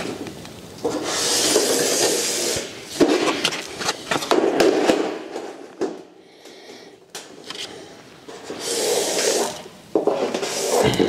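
Hands and tools scraping and rubbing across a corrugated steel cladding sheet while it is measured and marked out on a concrete floor. There are several separate scrapes, each up to about a second and a half long.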